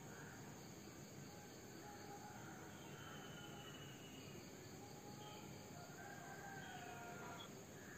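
Faint dawn ambience: insects trilling steadily high in pitch, with distant birds giving thin whistled calls at several pitches through it.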